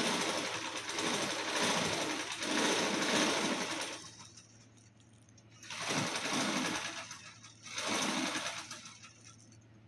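Thin plastic bag crinkling and rustling as a small kitten pushes and noses into it: one long stretch of about four seconds, then two shorter bursts near the end.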